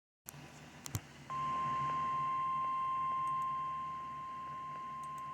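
Emergency Alert System attention tone: the National Weather Service's single steady alert tone at about 1050 Hz. It starts a little over a second in, after two brief clicks.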